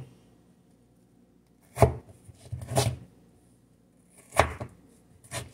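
Kitchen knife chopping through raw potato onto a cutting board: a few sharp chops about two seconds in, then more near the end.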